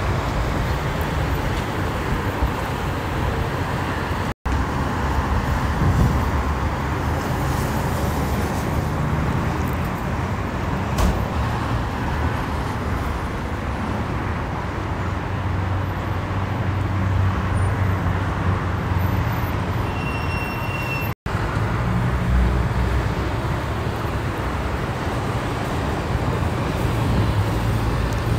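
Steady freeway traffic noise: the engines and tyres of passing cars and heavy trucks make a continuous low rumble. The sound cuts out for an instant twice.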